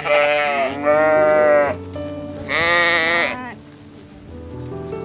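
Sheep bleating three times, the third call higher-pitched, over background music.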